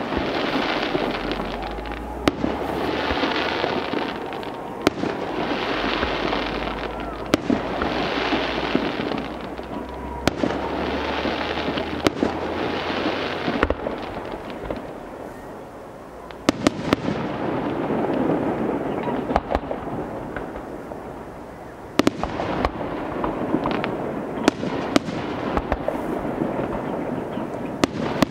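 Aerial fireworks display: shells bursting with sharp bangs at irregular intervals, often several close together, over a continuous noise that swells and fades.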